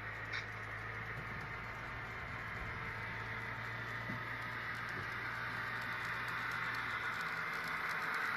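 Model Union Pacific E-unit diesel locomotives running on a layout, a steady hiss and hum from the sound-equipped engines and their wheels on the track, growing louder as the train approaches.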